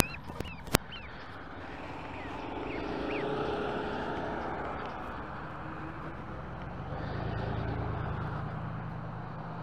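Road traffic passing, with two vehicles going by, one about three seconds in and one near the end. In the first few seconds there are a few short high peeps from a gosling being carried, and a couple of sharp clicks at the very start.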